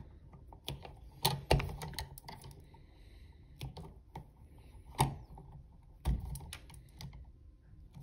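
Wire strippers snipping 12-gauge copper house wire to length, giving a string of irregular sharp clicks and snips, the loudest about one and a half and five seconds in.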